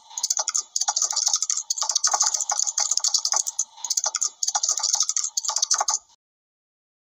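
Computer-keyboard typing sound effect: rapid key clicks in quick runs with brief pauses, stopping suddenly about six seconds in.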